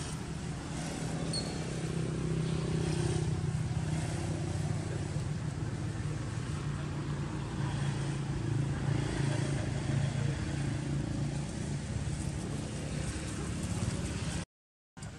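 A motor vehicle engine running steadily with a low hum; the sound cuts out completely for about half a second near the end.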